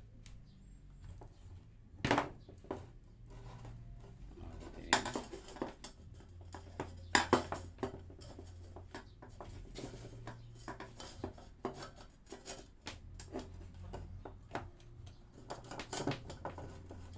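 Empty tin can and power cable being handled on a wooden workbench: scattered metallic clicks and knocks, the loudest about two seconds in, as the cable is pulled through the can and the can is laid down and stood up again.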